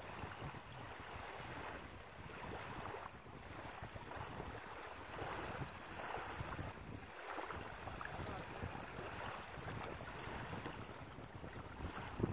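Wind buffeting the microphone over small waves lapping at the shore, the noise swelling and easing every second or two.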